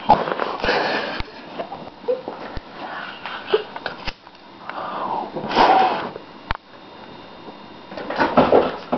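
A person stifling a cough, with sniffs and breathy bursts through the nose and mouth: three main bursts, near the start, around the middle and near the end, with a few sharp clicks between them.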